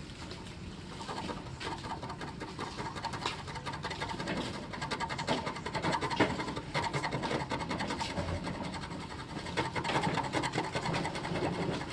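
A hard, blunt-edged flat tool scraping hardened mango tree sap off a car's painted body panel: a rapid, fine rasping, heavier from about five seconds in and again near the end.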